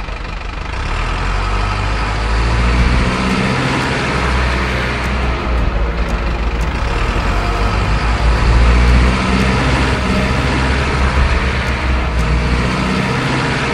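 Truck engine running steadily with a low rumble.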